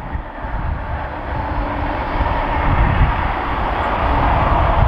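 Rumble of an SBB Cargo locomotive approaching along the line below, growing louder toward the end, with wind buffeting the microphone.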